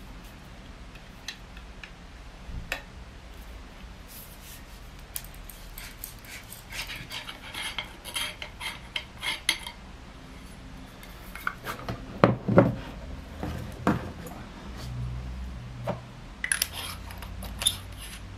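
Clicks, clinks and taps of metal parts as the sections and tool heads of a screw-together survival stick are handled and fitted, with a quick run of clicking in the middle and a few louder knocks about twelve seconds in.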